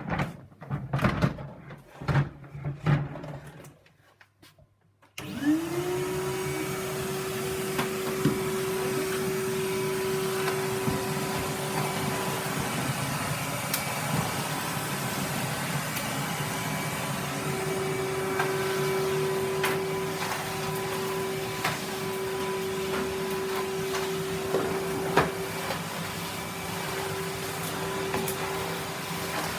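A few knocks, then a Henry canister vacuum cleaner switches on about five seconds in: its motor whine rises quickly to a steady pitch and runs on steadily, with occasional clicks over it.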